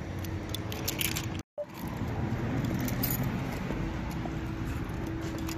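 Keys jingling in hand while walking, light metallic clinks over steady outdoor background noise, with a brief dropout about a second and a half in.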